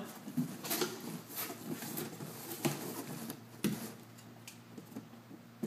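Corrugated cardboard box flaps being folded down and handled, with soft rubbing and a few sharp taps and creaks scattered through, quieter toward the end.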